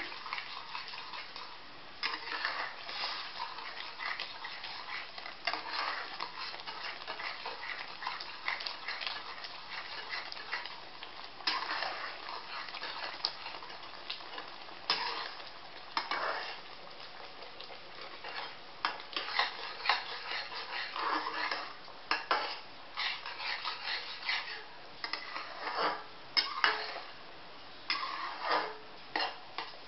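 Metal spatula stirring semolina upma quickly in a metal kadhai, scraping and clinking against the pan in uneven strokes as the semolina soaks up the water and thickens into a paste. The scrapes come louder and sharper in the second half.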